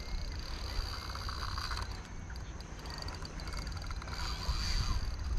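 A spinning reel being cranked on a retrieve. Its gears make a fast, fine rattle for about a second, starting about a second in, against a steady rumble of wind on the microphone.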